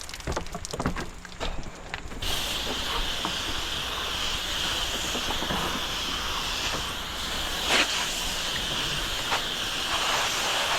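Pressure washer spraying through an M5 twist nozzle: a steady hiss of high-pressure water that starts about two seconds in, after a few light clicks and knocks.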